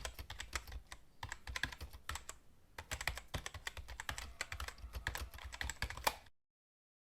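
Rapid, irregular clicking like typing on a keyboard, stopping abruptly about six seconds in and followed by dead silence.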